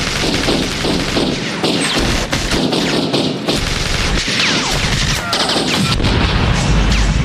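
Rapid automatic gunfire in long sustained bursts, with a heavy blast near the end.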